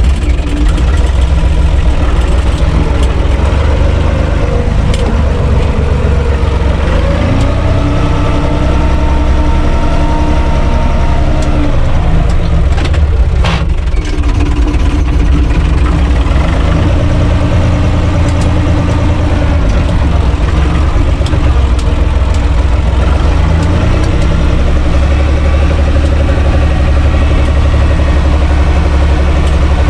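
UTB Universal 445 DT 4x4 tractor's diesel engine running, heard from inside the cab. The engine note rises between about four and eight seconds in, and there is one short knock about halfway through.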